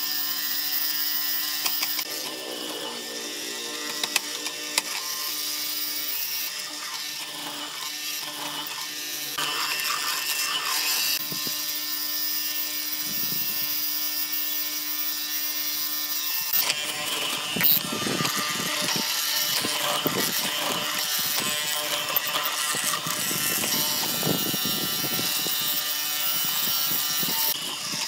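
Electric benchtop hollow-chisel mortising machine: its motor runs with a steady hum for the first half, then from about 17 seconds in the spinning auger and square chisel are plunged repeatedly into the wooden board, cutting out a mortise with rough, uneven grinding.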